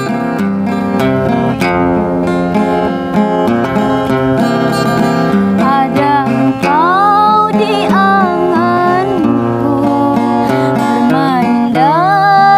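Acoustic guitar strummed in a steady rhythm, joined about halfway through by a woman singing over it.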